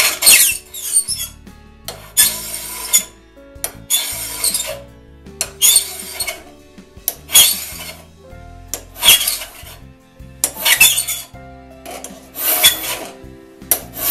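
Flat file rasping across the steel raker tooth of a one-man crosscut saw, about eight even strokes at roughly one every 1.7 seconds. The raker is being dressed down through a depth gauge to sit 15 thousandths below the cutting teeth.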